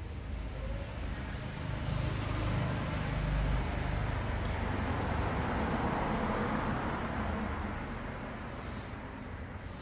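A passing road vehicle: a rumble swells about two seconds in and fades away toward the end.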